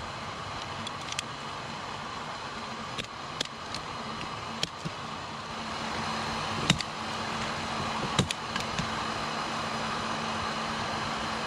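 A small motor running with a steady whir and low hum. Sharp clicks and snaps come at irregular times, two louder ones past the middle. The whir gets a little louder about six seconds in.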